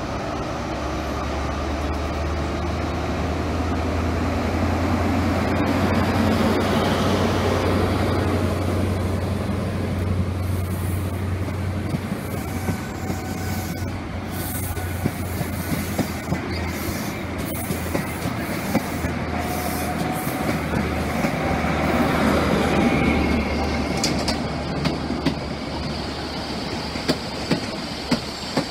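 High Speed Train Class 43 power car's MTU diesel engine working hard as the train pulls away, a steady low drone that builds over the first few seconds while the coaches roll past, with faint wheel squeals. Near the end come a few sharp clicks of train wheels over rail joints.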